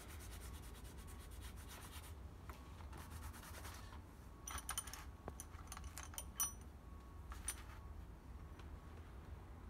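Steel Grade 8 bolts clinking and knocking together several times with short, high metallic rings, amid faint rubbing and handling noise.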